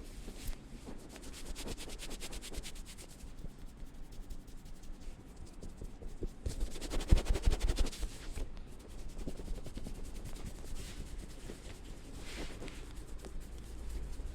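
Hands rubbing over hair and scalp in a head massage, loudest about seven seconds in. In the first few seconds, a rapid, even run of barber-scissor clicks.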